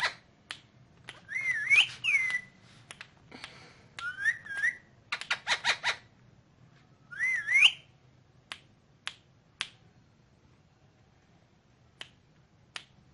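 Indian ringneck parakeet whistling three short notes that swoop up and down, between quick runs of sharp clicking. It follows with a few single clicks spaced out over the last few seconds.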